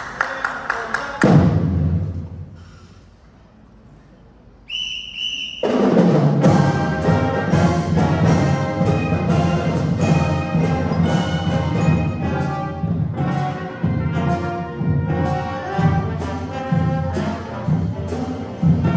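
High school concert band playing live: a few sharp clicks and a loud hit that dies away, a short near-quiet pause, a single bright ringing note, then the full band with brass and drums coming in at full strength and playing on with a steady beat.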